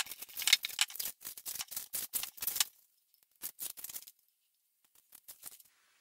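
Masking tape being peeled and torn off the chromed stanchion tubes of a moped front fork: rapid crackling and tearing, first a long pull of nearly three seconds, then two short ones.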